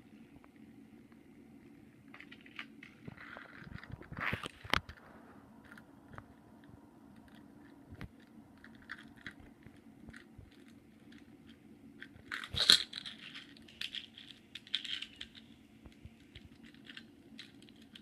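A small die-cast Matchbox toy car being handled and rolled along a wooden board: scattered light clicks, scrapes and knocks, loudest about four seconds in and again near twelve seconds in, over a low steady hum.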